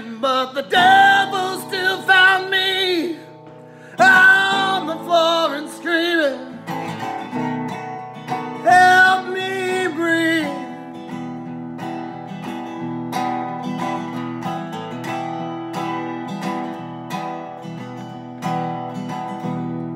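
A man singing a slow country-style song to a strummed resonator guitar, his voice in phrases with short gaps. About halfway through the singing stops and the guitar goes on strumming alone, a little quieter, easing off near the end.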